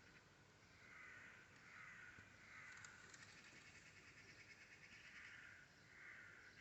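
Faint, harsh, rasping calls of a bird, repeated about five times.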